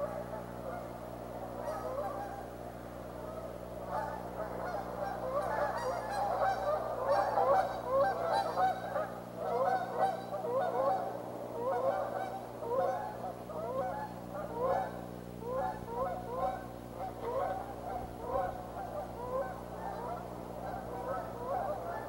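A flock of geese honking, many overlapping short calls that build about four seconds in, are densest for the next several seconds, then go on more sparsely. A steady low hum runs underneath.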